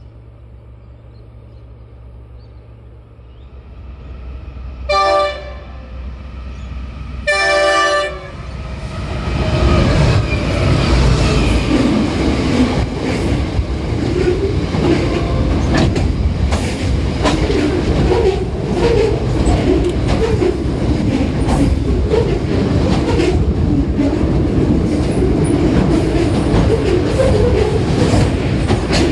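Freight train led by NR class diesel locomotives (GE 7FDL-16 engines) approaching with a rising engine hum, then two blasts of the locomotive horn, the second a little longer. The train then passes, loud and steady, with the engines rumbling and the wagon wheels clattering over the rail joints.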